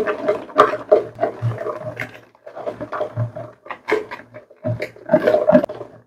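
Wire whisk beating thick cake batter in a plastic bowl: quick, irregular scraping and clicking strokes, pausing briefly twice.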